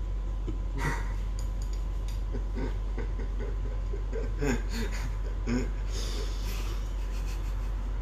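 Two men trying to hold in their laughter: stifled snickers and wheezing, snorting breaths in short bursts, several times, over a low steady hum.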